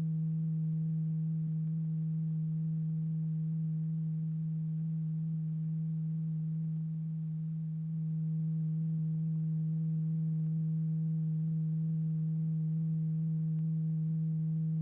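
A steady, low, pure electronic tone of about 165 Hz with faint overtones. It is the test tone driving the vibrating diaphragm in a cymatics experiment, and it dips a little in level about seven seconds in.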